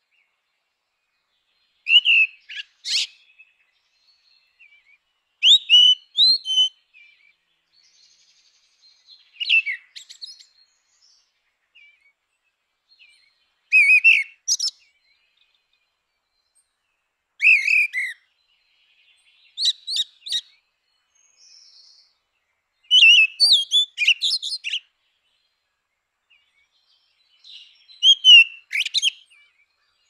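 Grey-winged blackbird singing: about eight short phrases, each a few clear whistled notes running into a higher twitter, separated by silent pauses of a few seconds.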